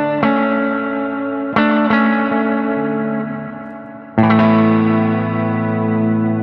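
Electric guitar chords strummed through a BYOC Reverb 2 spring reverb pedal, which is built around a Belton BTDR-2 digital spring reverb module. Several chords are struck, and the loudest, about four seconds in, is left ringing out with a long reverb tail.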